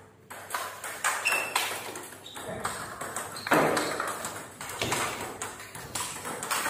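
Table tennis balls clicking sharply off bats and table tops in quick, irregular succession, from more than one rally at once.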